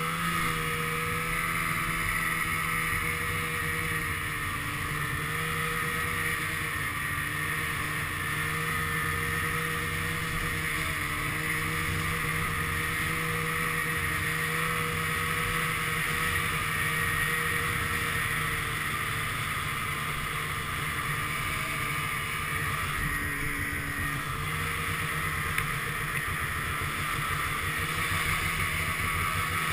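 Snowmobile engine running steadily under way, its pitch wavering slightly up and down as the sled travels over the snow.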